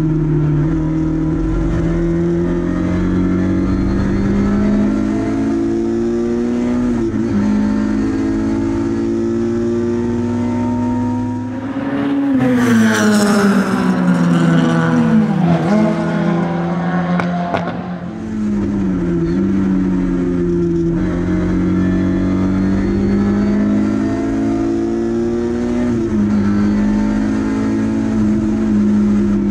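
Lada 2102 race car's four-cylinder engine at high revs, heard from inside the cabin, its pitch dropping briefly and climbing again at each of several gear changes. For several seconds in the middle the car is heard from trackside instead, louder and brighter, with its engine note falling.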